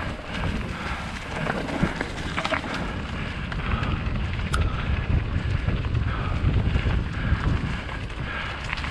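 Wind rumbling on the microphone while a mountain bike rolls along a dirt trail, with a rough crunch from the tyres and scattered clicks and rattles.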